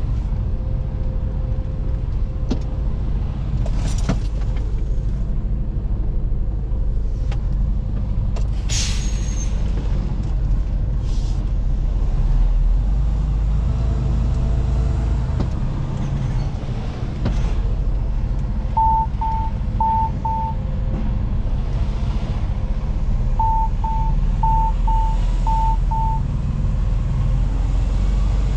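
Mercedes-Benz semi-truck's diesel engine running at low revs, heard from inside the cab while the rig creeps along. A couple of short air-brake hisses come in the first ten seconds, and two runs of short electronic warning beeps, four and then six, sound in the second half.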